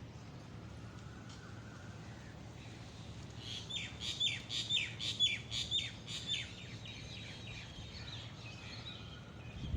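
A songbird singing a quick run of short, falling notes, about four a second, fading away near the end.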